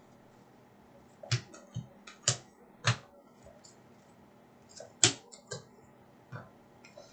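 Hockey trading cards being flicked through by hand, giving a string of short, irregular snapping clicks as each card is pulled off the stack; the loudest comes about five seconds in.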